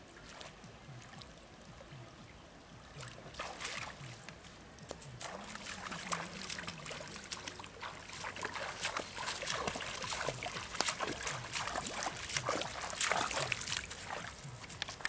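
Water splashing and sloshing in irregular bursts, starting about three seconds in and growing busier and louder towards the end.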